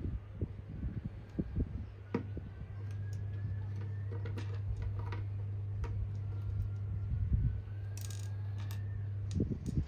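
Small plastic building bricks clicking and tapping as they are handled and snapped together, scattered irregular clicks over a steady low hum.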